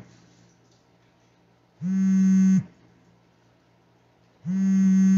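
A low buzzing tone, flat in pitch, sounding twice for just under a second each, about two and a half seconds apart, with near quiet between.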